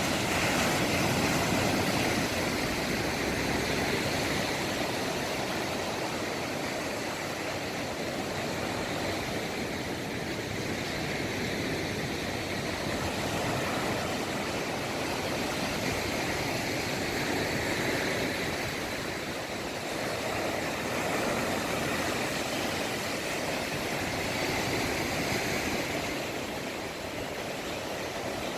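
Sea waves breaking and washing on the shore: a steady rushing noise that swells and eases every several seconds.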